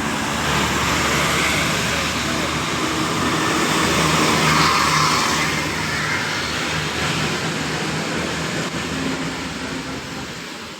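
A bus driving past: engine and road noise swell to a peak about four to five seconds in, then fade away.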